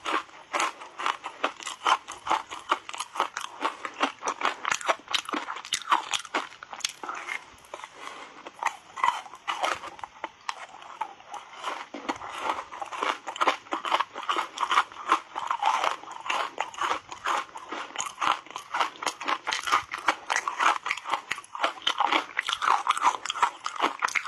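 Close-miked crunching and chewing of reshaped ice coated in matcha tea powder: a steady run of sharp cracks as the ice is bitten and broken between the teeth.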